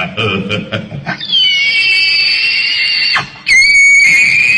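Two long, high-pitched squeals, each held about two seconds: the first starts about a second in and dips slightly in pitch at its start; the second follows after a short break.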